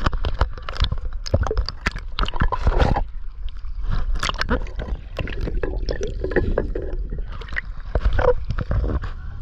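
Shallow water splashing and sloshing as a mooring rope is worked loose from a ring on a submerged slipway by hand and hauled out dripping, with irregular splashes and knocks.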